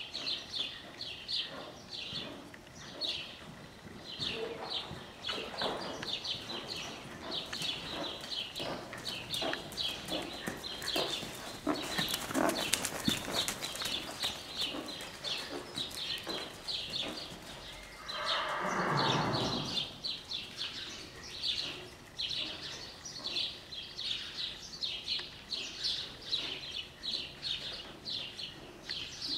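A horse blows one long snort through its nostrils about two-thirds of the way in, the loudest sound here. Under it, steady high chirping repeats a couple of times a second.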